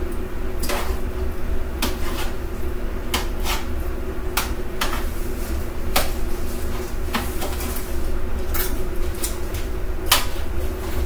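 Kitchen utensils and cookware clattering: irregular sharp clicks and knocks of metal and dishware over a steady low hum.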